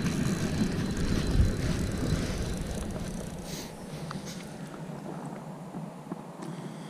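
Zebco Dock Demon spincast reel being cranked, its gears whirring as a fish is reeled in; the noise fades about halfway through, leaving a few light clicks.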